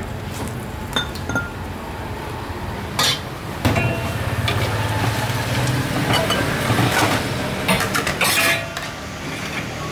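Metal spoons and a ladle clinking against steel bowls and a large steel stockpot while a bowl of beef noodle soup is dished up: scattered clinks, with a denser run of clinks near the end. A low steady hum runs underneath from a few seconds in.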